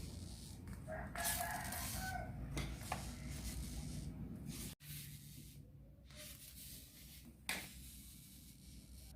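A rooster crowing once, about a second in, over low rustling; a single sharp click later on.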